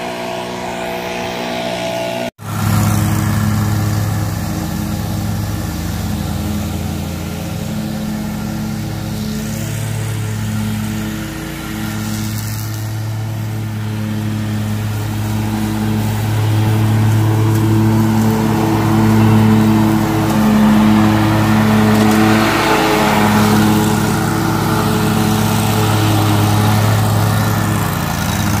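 Lawn mower engine running steadily, its note swelling and easing in pulses and louder in the second half. It comes in on an abrupt cut about two seconds in, after a brief stretch of background music.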